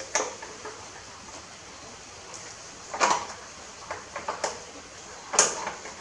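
A few short, sharp clacks and knocks of hand tools and engine parts being handled, the loudest about three seconds in and again near the end.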